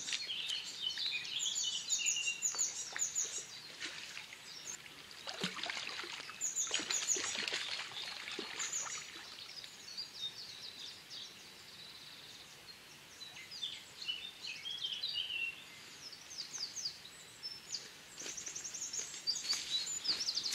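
Small songbirds singing, with repeated quick chirps and trills through the whole stretch, and a few faint splashes of water about five to nine seconds in.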